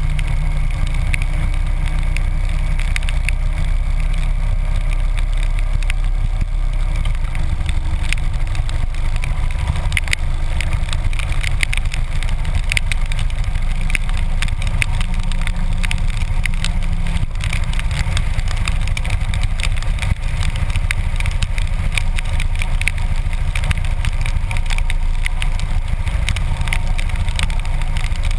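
Harley-Davidson V-twin motorcycle engine running steadily at road speed in the rain, with wind rush and a constant crackle of raindrops striking the camera case.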